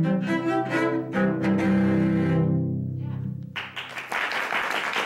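Two cellos playing the closing bars of a duet, ending on a held low chord that fades away. Applause breaks out suddenly about three and a half seconds in.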